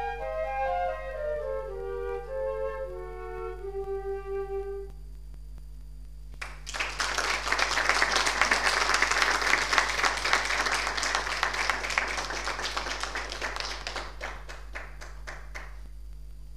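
Flutes play a descending phrase that ends about five seconds in. After a short pause, the audience claps, at its loudest shortly after it starts, then thins out and stops near the end.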